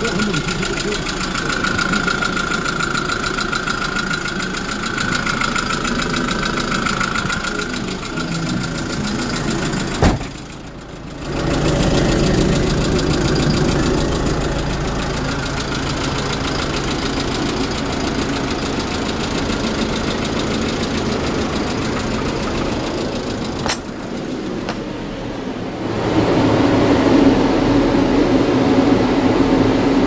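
Kia Bongo III truck's diesel engine idling steadily, with a sharp click and a brief drop about ten seconds in and another click later on. In the last few seconds a different steady whirr takes over: the box refrigeration unit's twin condenser fans running.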